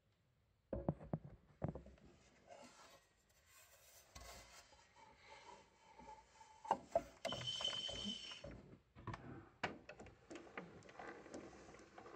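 Faint knocks, clicks and rubbing on the wooden gramophone cabinet as it is handled, starting about a second in, with a short whine near the middle.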